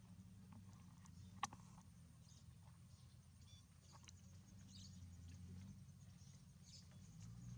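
Near silence over a low hum, with faint, scattered high-pitched animal squeaks and one sharp click about a second and a half in.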